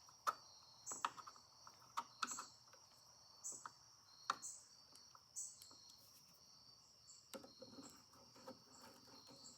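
Scattered light clicks and taps of a screwdriver and small screws on the metal parts of an Edison Diamond Disc phonograph spring motor, roughly one every second, as the spring barrel is screwed down. A faint steady high chirring runs underneath.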